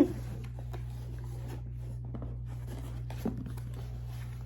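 Faint scratching, rustling and small clicks of a cardboard package being handled, over a steady low hum.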